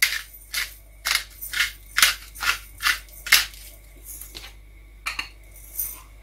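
Hand pepper mill grinding: about nine short twists at roughly two a second, then a pause and two more. Ends with a sharp knock as the mill is set down on the counter.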